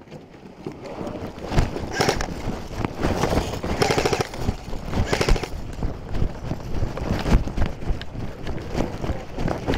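A body-worn camera jolting and rubbing as the wearer runs: heavy footfalls, with airsoft gear and clothing rattling and brushing against the microphone in irregular clattering spells.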